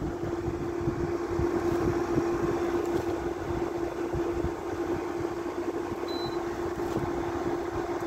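Modern window air conditioner running with its compressor on: a strong fan moving air as an even rushing noise, over a steady hum.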